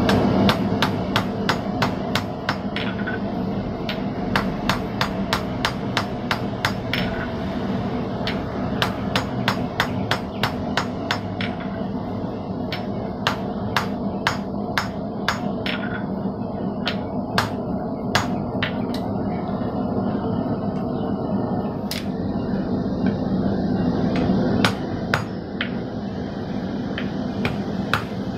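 Hand hammer striking red-hot 1050 steel held in tongs on the anvil, forging a small hammer head. Quick, even blows for the first twelve seconds or so, then slower, more widely spaced strokes.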